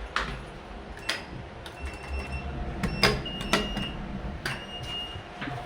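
Irregular sharp clicks and knocks, the loudest about three seconds in, with a high steady electronic tone that comes and goes.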